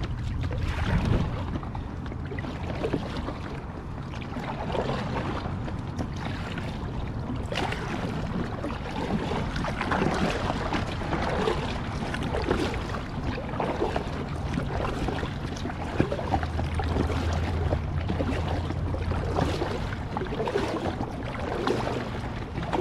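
Double-bladed kayak paddle dipping and pulling through the water in steady alternating strokes, each stroke a splash and swish. Wind rumbles on the microphone underneath.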